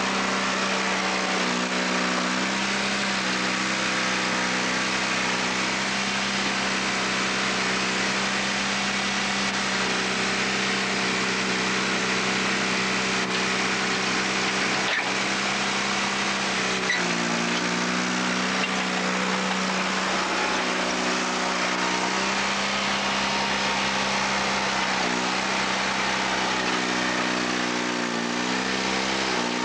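An Allis-Chalmers HD-5 crawler loader's Detroit Diesel 2-71, a two-cylinder two-stroke diesel, runs steadily while the loader dumps and digs. Its pitch drops and recovers a few times as the load changes.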